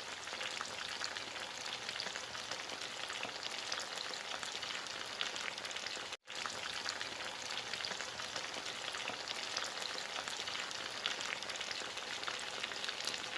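Chicken pieces shallow-frying in a little oil: a steady sizzle full of small crackling pops. The sound cuts out for an instant about six seconds in.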